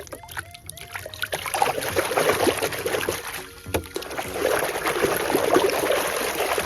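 Water sloshing and splashing with a dense patter of small splashes, building up about a second and a half in and running on fairly loudly, as toy tools are washed.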